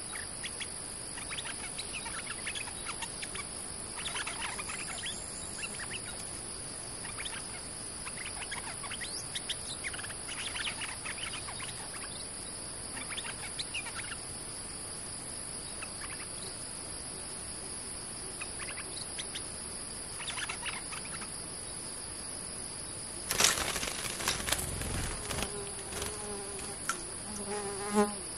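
Steady high-pitched drone of forest insects, with scattered short chirps from stripe-throated bulbuls at a decoy trap-cage. Near the end a sudden loud rustle and knock lasts a couple of seconds.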